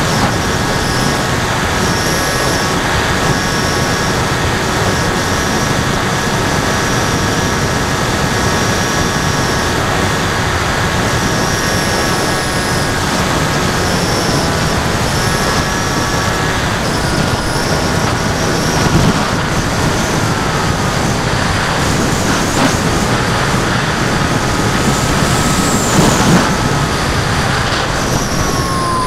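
Wind rushing over the onboard camera of an FX-61 Phantom flying wing, with the steady whine of its NTM 2836 brushless motor and 10x5 propeller. Near the end the motor whine drops lower and glides down in pitch as the throttle is eased for the descent.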